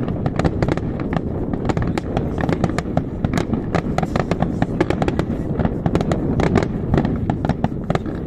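Fireworks display: aerial shells bursting in a dense, unbroken run of bangs and crackles, several a second, over a steady low rumble.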